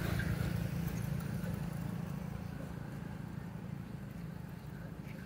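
Low, steady rumble of a motor vehicle's engine, slowly fading.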